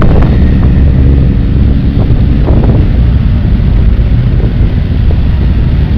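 A group of motorcycles riding slowly past, engines running, heavily overlaid by wind buffeting on the microphone that makes a steady low rumble.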